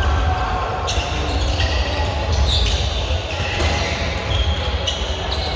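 Players' court shoes squeaking on a wooden sports-hall floor during a handball match, several short high squeaks, with a few sharp knocks of a handball bouncing and players running, echoing in a large hall.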